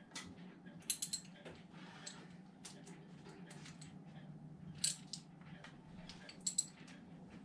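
Hand wrench clicking and clinking against metal on the engine's belt-adjuster bolts as the drive belt is tightened: a short run of sharp clicks about a second in, then single clicks near the end, over a faint steady hum.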